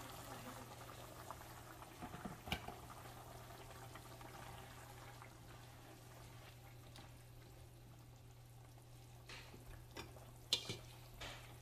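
Water poured from a kettle into a pan of simmering potato curry, then the curry bubbling quietly while a spoon stirs it. A few sharp knocks come through, the loudest near the end.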